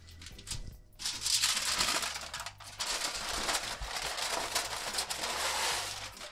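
Aluminium foil crinkling and rustling as it is handled and folded up to wrap a fish, starting about a second in and going on steadily.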